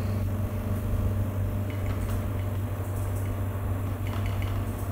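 Yuwell 7A-23D electric suction apparatus's pump motor running steadily with a low hum, pulling heavy suction through its twin 2.5-litre collection bottles and tubing.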